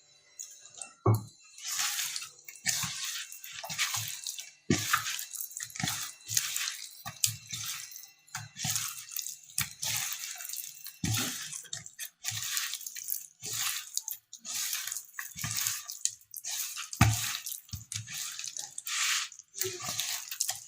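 Hands squishing and kneading fish pieces in a wet masala paste of spice powder and corn flour, a run of irregular wet squelches, with a few louder thumps as the pieces are pressed against the bowl.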